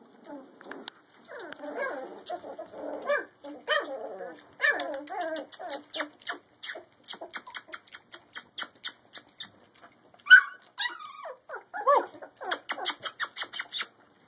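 A litter of two-and-a-half-week-old puppies whimpering and yipping, with strings of short cries in quick succession and whines that bend up and down in pitch about ten seconds in.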